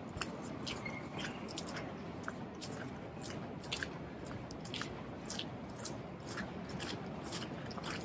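Footsteps crunching in fresh snow, a short sharp crunch with each step at a steady walking pace, over a steady low background noise.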